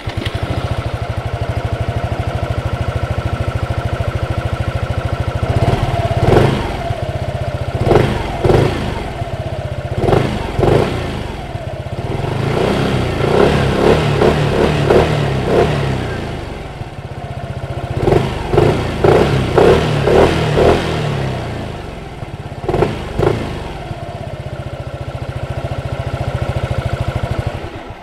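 Zontes M125 scooter's 125 cc liquid-cooled single-cylinder engine idling, recorded at the exhaust. It is revved repeatedly with quick throttle blips, in a few bunches, and drops back to a steady idle between them.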